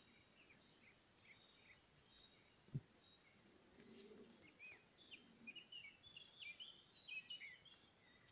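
Faint field ambience: a steady high-pitched insect trill, with scattered short bird chirps that get busier in the second half. A single brief thump a little under three seconds in.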